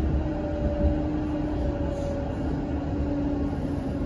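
Interior ride noise of a moving electric tram: a steady low rumble with a motor hum that sinks slightly in pitch.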